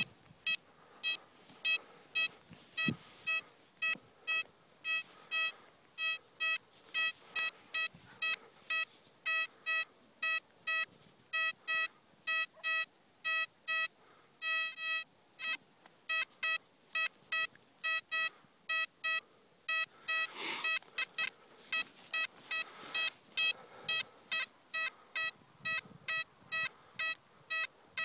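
XP Deus metal detector giving a strong target signal: repeated short beeps at one steady pitch, about two a second, as the coil is swept over a buried beer can. A short scrape of digging is heard about two-thirds of the way through.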